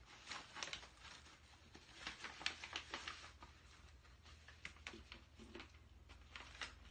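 Faint rustling and crinkling of a mail-order envelope and small plastic packets being handled, with scattered small clicks and taps.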